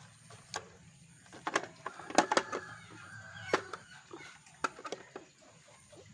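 Hands setting pak choi into a plastic tray: a series of sharp clicks and knocks of the tray with the rustle of the leaves, busiest around two seconds in.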